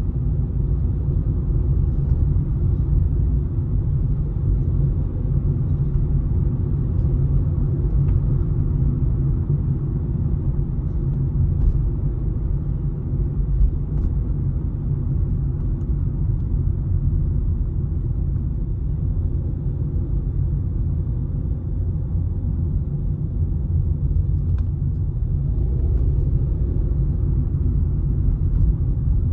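Steady low rumble of a car driving on a city street, heard from inside the cabin: tyre and engine noise.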